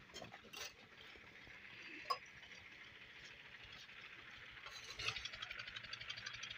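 Faint building-site background with a few light clinks, the sharpest about two seconds in, over a steady hiss that grows a little louder near the end.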